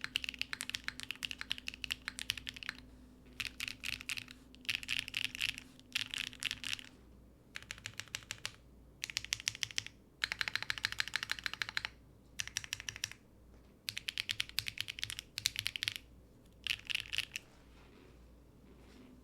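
Typing in quick bursts on a mechanical keyboard with factory-lubed XY Studio BSUN Jade Rosales linear switches, mounted on an aluminium plate with no foam, with short pauses between bursts. The typing stops a couple of seconds before the end.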